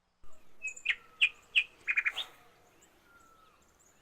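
Wild birds singing: a run of sharp chirps in the first two seconds that ends in a quick trill and a rising note, then fainter thin falling whistles.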